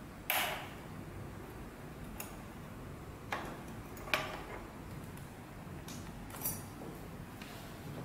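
Short clicks and scrapes of a hex key and the aluminium cover of a key cutting machine being unscrewed and lifted off by hand. There are four of them; the first, just after the start, is the loudest.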